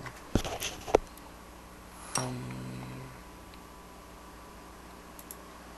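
Two sharp computer mouse clicks in the first second, then a brief low hum from a man's voice about two seconds in.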